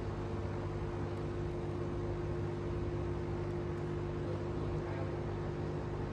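HiBREW H7B espresso machine running its pump during espresso extraction, a steady hum with a noisy whir under it.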